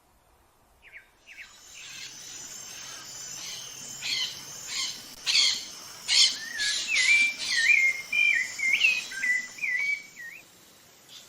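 Rufous-bellied thrush singing: a run of short, slurred whistled notes in the second half, over higher, scratchy, stuttering calls.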